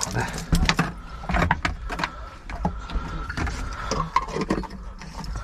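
Plastic water jug and bottles being handled, giving a run of crinkling clicks and knocks.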